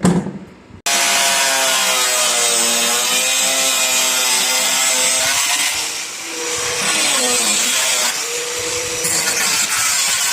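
Power cutting tool cutting away the hood's underside bracing. It starts with a short burst, stops for a moment, then runs steadily, its pitch sagging and recovering as it loads in the cut.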